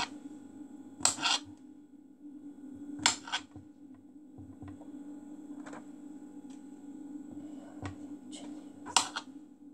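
Kitchen knife slicing mushrooms on a chopping board: irregular sharp knocks of the blade striking the board, three louder ones about a second in, at three seconds and near the end, with softer cuts between, over a steady low hum.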